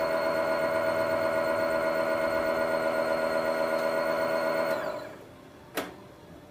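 Homemade mini locomotive's motor running with a steady, even-pitched drone. It cuts off about four and a half seconds in, and a single sharp click follows about a second later.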